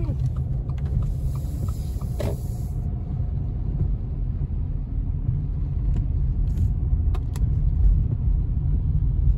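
Steady low rumble of a car driving on a wet road, heard from inside the cabin, with a few light clicks.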